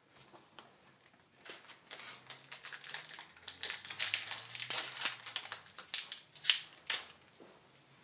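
Foil wrapper of a Yu-Gi-Oh! booster pack being torn open and crinkled by hand: a quick run of crackling rustles that starts about a second and a half in and stops near the end.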